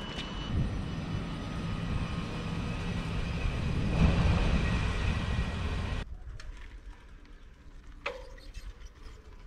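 Passenger train at a station platform: a steady rumble with a faint high whine. It cuts off suddenly about six seconds in, leaving a much quieter outdoor background with one sharp click.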